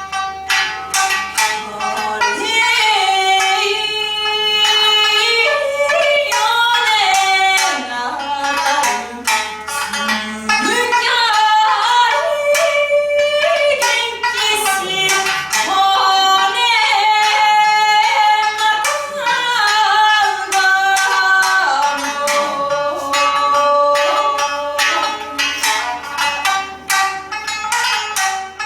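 A Tokunoshima folk song: a singer's high voice sliding between notes over a plucked shamisen.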